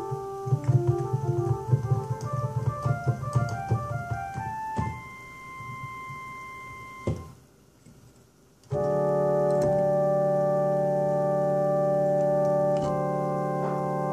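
Electronic keyboard on an organ sound playing quick runs of notes over low bass notes, then a soft held chord. After a short pause comes a loud sustained closing chord, which shifts once near the end.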